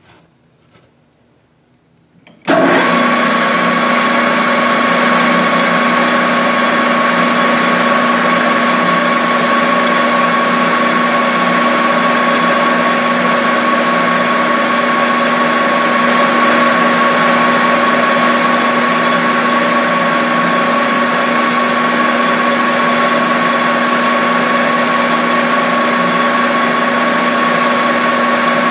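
Metal lathe switching on about two and a half seconds in, then running steadily with a constant whine, spinning a stainless steel rod against a center drill to start a hole in its end.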